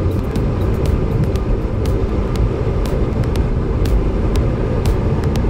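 Bombardier Q400 Dash 8's twin Pratt & Whitney PW150A turboprop engines and propellers running at taxi power, heard inside the cockpit as a steady, dense rumble with a faint drone. Frequent short, sharp ticks and rattles sound through it.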